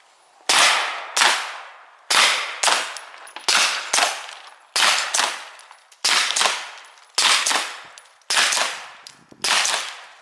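Pistol shots from a 9mm Glock 19X and a suppressed .22 LR Glock 44, fired steadily in pairs: about sixteen shots, two close together roughly every second and a quarter, each ringing out briefly.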